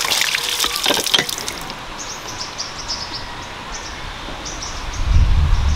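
Water from a hand pump splashing over hands and raw shrimp in a basket, stopping abruptly about a second and a half in. After that it is quieter, with faint short high chirps repeating and a low rumble near the end.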